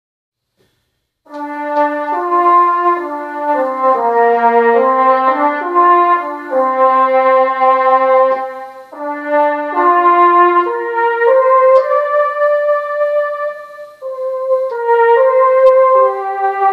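Electronic keyboard playing a brass-ensemble voice: a melody in full chords that starts about a second in.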